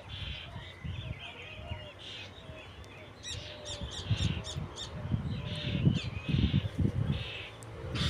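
Wild birds chirping and singing, with a quick run of repeated high notes a few seconds in. A low rumbling noise swells under them in the second half and is the loudest sound.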